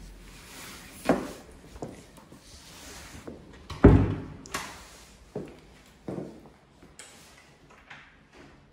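A panelled interior door handled and pushed open, with knocks and bumps, the loudest about four seconds in. Then footsteps on a slate-tiled floor, about one step every three-quarters of a second.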